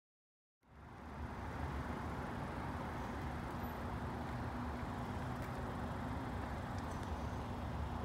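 Steady low rumble with a faint steady hum from an LIRR diesel train approaching in the distance, starting about half a second in. No horn sounds yet.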